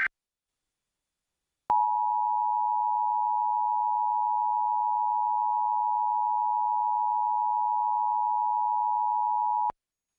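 Emergency Alert System attention signal: two steady tones sounded together, starting about two seconds in, holding for about eight seconds and cutting off abruptly. It announces an emergency alert message about to be read.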